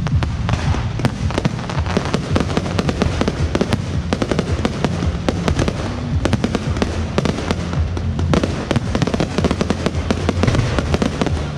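Aerial fireworks shells bursting overhead in a dense, continuous barrage of rapid crackling and banging reports.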